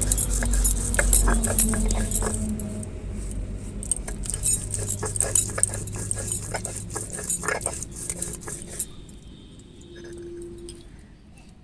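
Whole spices (dried and green chillies, cumin, coriander, black pepper) being ground by hand with stone. It makes repeated knocks and scraping clinks, which die away after about nine seconds.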